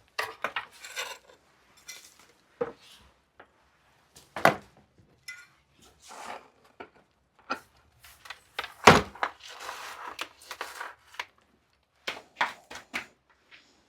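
Junk being handled and moved about in a small brick room: scattered knocks and clatters of wood and metal objects with brief scraping and rustling, and one heavier thud about nine seconds in.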